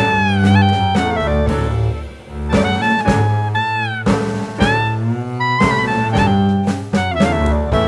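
Jazz music: a lead horn melody with bending notes over bass and drums.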